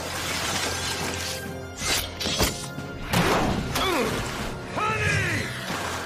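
Film sound effect of ice forming and crackling as an ice path is sprayed out and skated on, with sharp hits about two seconds in, over loud orchestral action music with sweeping falls in pitch near the end.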